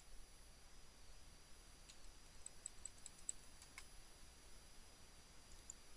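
Faint computer keyboard keystrokes: a few scattered clicks, with a quick run of small taps in the middle and a slightly louder click just before the four-second mark.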